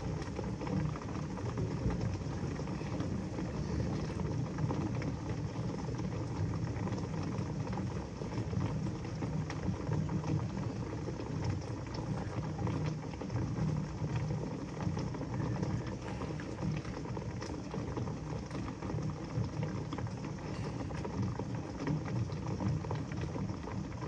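Heavy rain falling steadily in a thunderstorm, an even rushing sound with no breaks.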